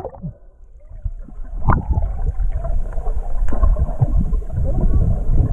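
Underwater sound picked up through an action camera's waterproof housing: a muffled low rumble of moving water with scattered clicks and knocks, getting louder over the first couple of seconds.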